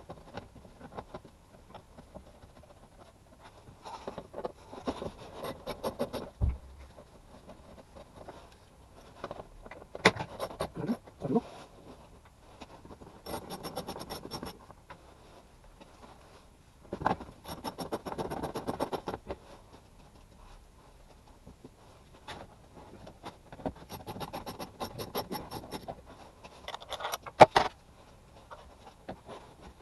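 Hand work on car panels: bursts of scraping and rubbing with scattered clicks and rattles, several seconds apart, with one sharp click near the end.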